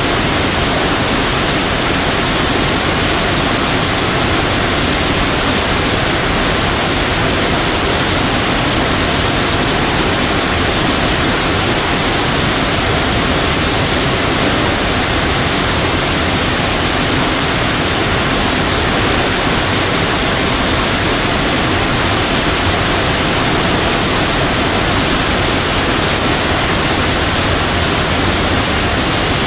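Loud, steady hiss: even noise spread across the whole range, with no tones, breaks or separate sounds.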